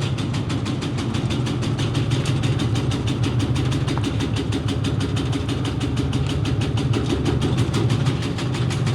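Automatic tobacco-leaf shredding machine running steadily: a constant motor hum overlaid by a rapid, even clatter of its cutting mechanism, several strokes a second.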